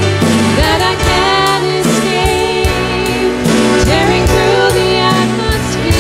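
Live worship band playing a praise song: female lead vocals over keyboard and electric guitar, with a steady drum beat.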